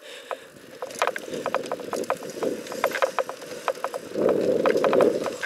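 Mountain bike ridden over a dirt trail: irregular clicks and rattles from the bike jolting over bumps, over a rushing tyre and wind noise that grows louder for about a second near the end.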